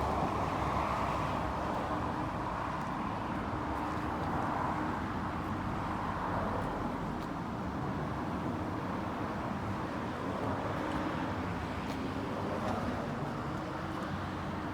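Steady road traffic noise: a continuous rush of passing vehicles that swells and fades slightly.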